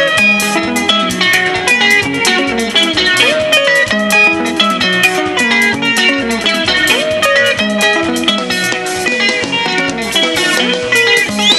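Live sungura band playing an instrumental passage: interlocking electric guitar lines over bass guitar and drums, with a rising guitar figure coming round about every three and a half seconds. A shrill, steady high tone cuts in at the very end.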